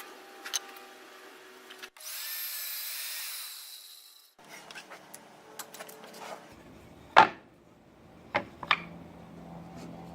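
Table saw blade cutting through plywood for about two seconds, a couple of seconds in, followed by a few sharp wooden knocks as the cut pieces are handled, the loudest about seven seconds in.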